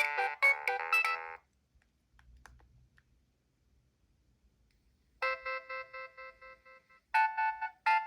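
Nokia 7250i's preloaded polyphonic tones: one melody ends about a second and a half in, then after a few seconds of near quiet another begins about five seconds in with held notes and breaks into a quickly repeated pattern of short notes.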